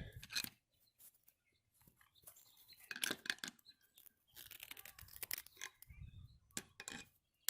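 Irregular, faint crunching and creaking of wood with scattered clicks as a tool is worked by hand into a wet 4x4 post; the wood is tough and resisting.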